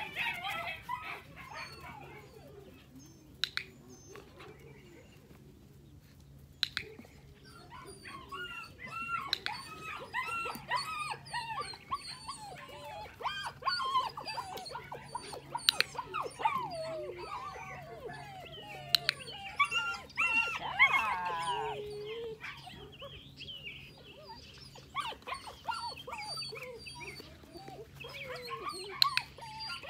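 Eight-week-old puppies whining and yipping in short, high, wavering cries. The cries are sparse at first, then come thick and overlapping from about eight seconds in, with a few sharp clicks among them.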